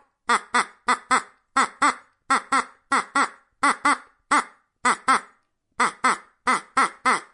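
Duck quacking over and over: short calls with a pitch that rises then falls, mostly in quick pairs, two to three calls a second.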